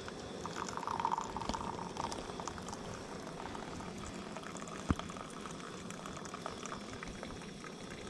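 Hot drink poured from a stainless vacuum flask into mugs, the stream filling one mug and then another. A single sharp knock comes about five seconds in.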